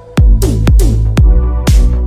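Electronic dance music with heavy bass kick drums on a steady beat, about two a second, and bright cymbal hits.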